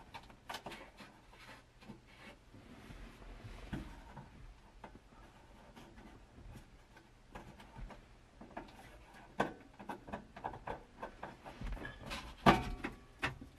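Light clicks, taps and rubbing as hands work at the black heater-core housing and its fittings under a truck's dashboard, with one sharper knock near the end.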